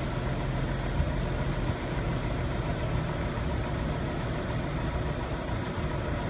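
Jaguar S-Type's 2.5-litre V6 idling steadily, heard at the twin exhaust tailpipes.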